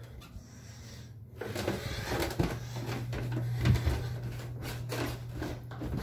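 Rustling and knocking handling noise from a phone being moved about while it records, starting about a second in, over a steady low hum.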